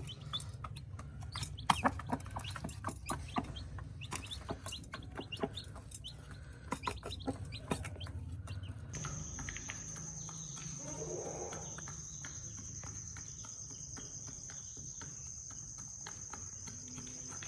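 Chickens clucking, with many short sharp calls through the first half. From about halfway a steady high insect drone, like a cricket, sets in.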